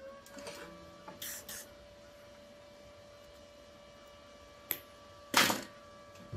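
An electric motor spins up, its pitch rising, then runs on with a steady hum. Over it come two short hisses about a second in, a click, and a louder short hiss near the end.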